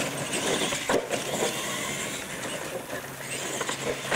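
Radio-controlled monster trucks driving flat out across concrete: a steady whirring of motors and drivetrains with tyre noise, and a couple of short knocks.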